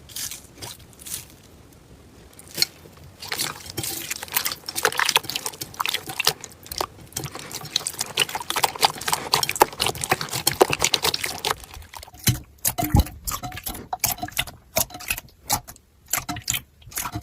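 Slime being squeezed and pressed by hand, giving dense, irregular wet squelching clicks and pops. The clicks thin out to separate pops about twelve seconds in.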